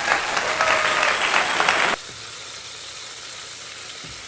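Chicken pieces deep-frying in hot oil, a dense loud sizzle that cuts off abruptly about two seconds in, leaving a quieter hiss.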